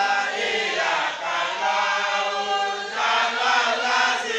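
A congregation chanting an Islamic devotional chant in unison, many voices holding sung phrases with short breaks between them.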